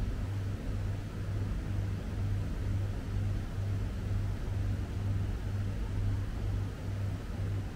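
A steady low mechanical hum that pulses about twice a second, over a constant rushing noise.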